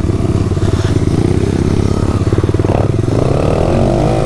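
Single-cylinder engine of a 110cc Chinese pit bike running as the bike rides along. Its pitch rises near the end as it accelerates.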